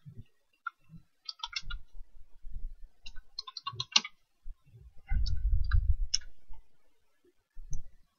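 Typing on a computer keyboard: short bursts of key clicks with pauses between them, and a run of dull low thuds about five to six seconds in.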